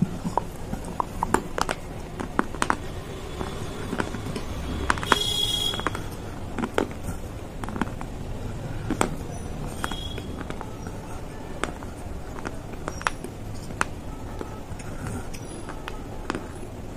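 Pieces of baked clay pot being crunched and chewed close to the microphone: irregular sharp crunches and clicks, with a brief noisy burst about five seconds in.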